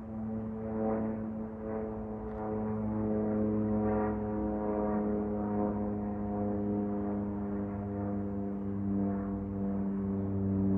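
An aircraft flying past with a steady engine drone, getting a little louder about three seconds in.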